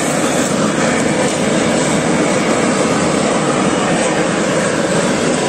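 Gas blowtorch burning steadily with a loud, even roar as its flame singes the hair off a goat carcass.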